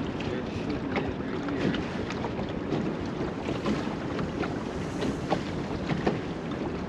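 Water lapping against a small boat's hull, with wind buffeting the microphone and small irregular knocks and clicks.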